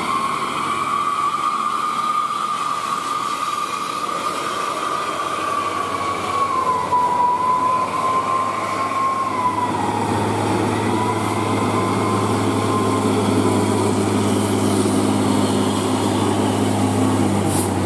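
Diesel engine of a Hino tractor unit hauling a container, labouring up a steep grade in a low gear, with a high whine that wavers in pitch over the engine drone. The low engine drone grows louder from about halfway through as the truck draws close.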